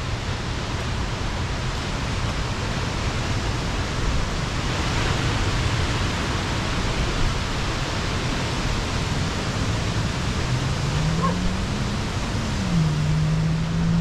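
Pacific surf breaking and washing below a bluff: a steady, even rush that swells about four seconds in. A low droning tone rises, dips and then holds through the last few seconds.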